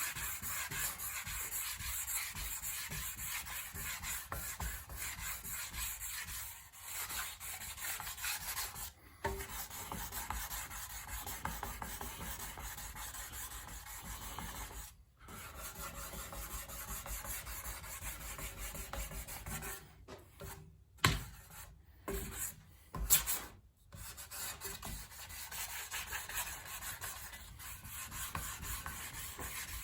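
Wet sanding freshly applied primer with 1500-grit sandpaper: a continuous rubbing, scrubbing sound of stroke after stroke. It breaks off briefly a few times about two-thirds of the way through, where a couple of sharp knocks stand out.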